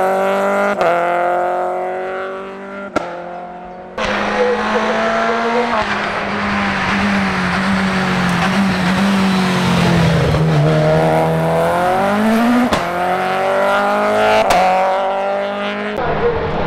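Renault Clio hill-climb race car engine at high revs, climbing in pitch with sharp breaks at each gear change and fading as the car pulls away. After a sudden cut about four seconds in, the engine's pitch sinks slowly as the car slows for a bend, then climbs again through further gear changes as it accelerates out.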